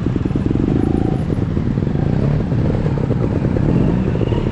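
Trials motorcycle engine running at low revs, with a short rise in revs about two seconds in.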